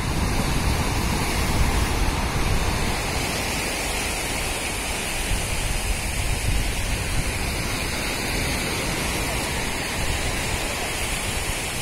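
Steady rushing noise of surf on the beach, with wind buffeting the microphone in an uneven low rumble.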